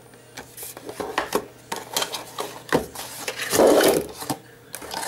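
Cardboard packaging being handled close up, and a plastic tube of hair colour taken out: scattered rustles, scrapes and small clicks, with one louder rustle a little past the middle.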